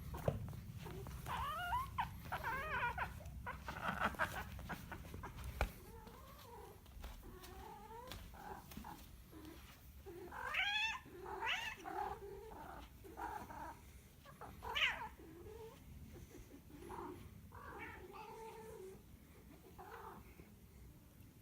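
Domestic cat yowling and meowing in a long run of wavering, drawn-out calls, loudest around the middle, over a low rumble in the first few seconds.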